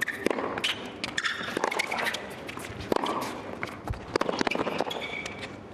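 A tennis rally on a hard court: sharp racket strikes on the ball and ball bounces every second or so, with short shoe squeaks in between.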